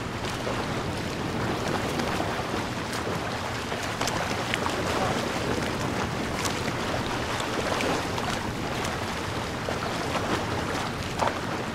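Sea surf breaking and washing in around a pier's pilings, a steady rushing noise, with wind buffeting the microphone.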